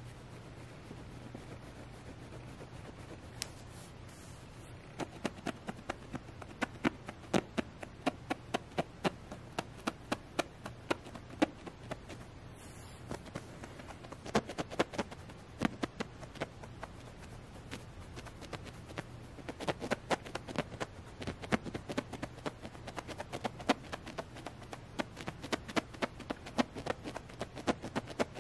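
Fingernails scratching and tapping on a Squishmallow plush's soft fabric and knit scarf: quick, irregular little scratchy clicks, several a second, in clusters that start about five seconds in.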